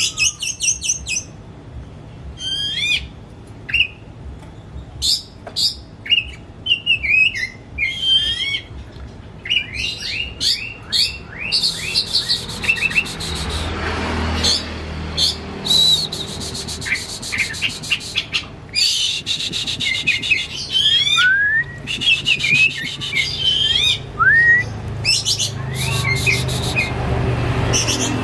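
Oriental magpie-robin singing a varied, loud song of whistled notes, upward glides and rapid trilled series, busiest in the second half, over a low background hum.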